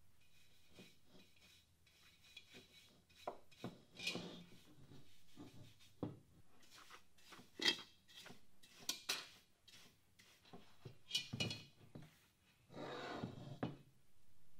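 Wooden-backed bristle hand brush scrubbing loose dirt and rust off a cast iron pot, outside and inside, in irregular scratchy strokes with a few sharp knocks and a longer rub near the end.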